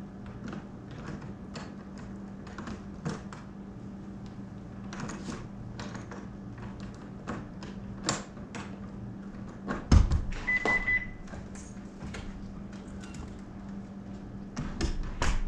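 Quiet room with a steady low hum and scattered soft clicks. About ten seconds in there is a loud thump, followed at once by a short, single-pitched high electronic beep; another knock comes near the end.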